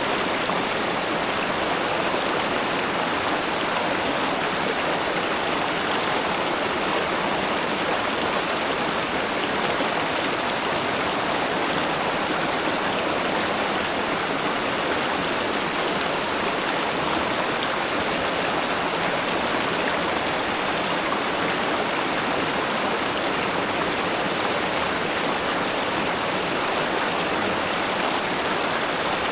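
Spring-fed river water flowing steadily, a continuous even rush without breaks.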